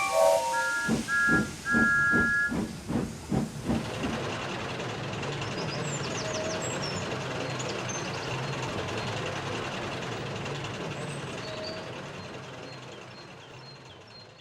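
Steam locomotive chuffing about three times a second for the first few seconds, then a steady hiss of steam that fades away near the end.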